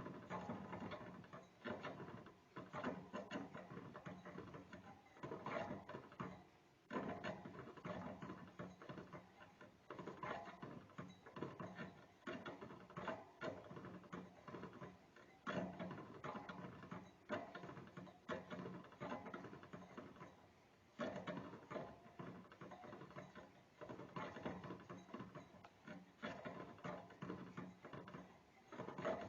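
Small rodent gnawing: its incisors make rapid, dense scraping clicks that come in bouts, broken by brief pauses.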